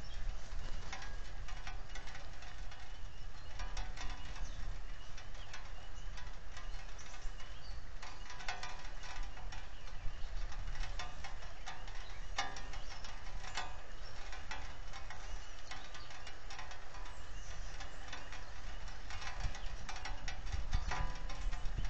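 Steady rain falling on the nest and the camera housing: an even hiss with many scattered sharp drop ticks, a few louder than the rest, over a low rumble.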